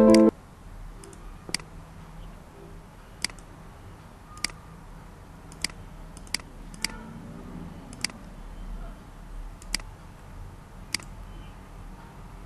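Piano music stops abruptly just after the start. Then a computer mouse clicks about ten times at uneven intervals over a faint steady room hum.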